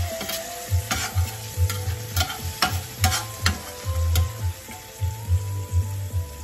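Ginger-garlic paste sizzling in oil in a stainless steel frying pan while a spatula stirs it, scraping and clicking against the pan at irregular intervals.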